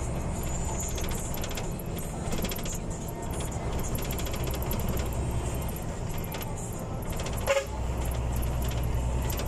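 Steady engine and road noise heard from inside the cab of a moving bus, with loose fittings jangling and rattling. About three-quarters of the way through, a short horn toot sounds.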